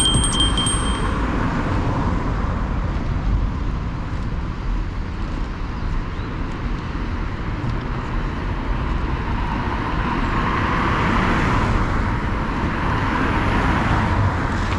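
Road traffic on a wet street: cars passing with tyre hiss over a steady low rumble. One car swells past about ten to thirteen seconds in.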